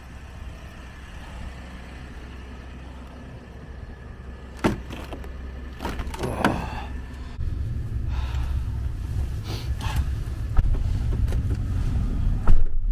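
Pickup truck idling with a steady low hum, with the click of a door latch about a third of the way in and a door being opened. The engine hum grows louder as the cab is entered, and a door thuds shut near the end.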